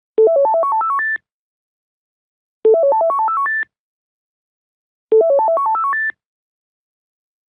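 Modern landline telephone ringing with an electronic melodic ringtone: three identical one-second phrases, each a quick run of about nine beeping notes zigzagging upward to a held high final note, with silence between rings.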